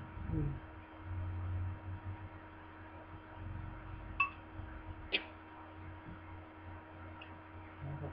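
Metal fork clinking against the bowl: two sharp clinks about a second apart around the middle, each with a short ringing ting, and a fainter clink near the end. A steady low hum runs underneath.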